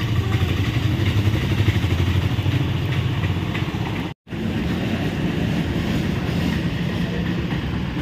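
Auto-rickshaw engines running close by with a steady low hum. The sound cuts out for a moment about four seconds in, then another auto-rickshaw's engine carries on.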